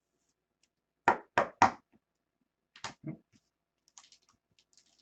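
Trading cards and packs handled on a tabletop: three sharp taps in quick succession, two more a moment later, then faint light clicking.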